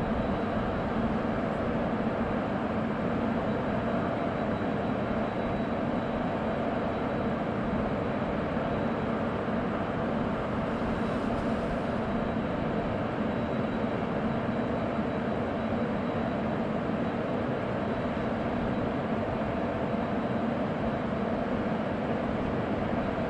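WAP1 25 kV AC electric locomotive standing energised and idling: a steady hum of its running machinery with a faint high whine, unchanging throughout.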